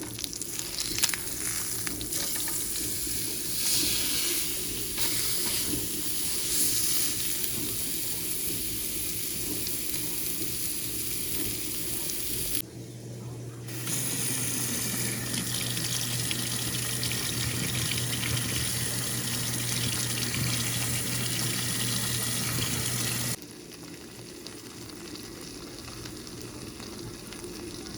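Water tap running into a sink in a steady rush, shut off for about a second roughly halfway through, then running again until it stops a few seconds before the end.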